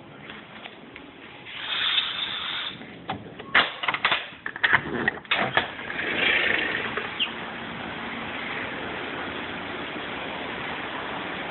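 A run of sharp clicks and knocks, like something being handled, then a steady rushing noise.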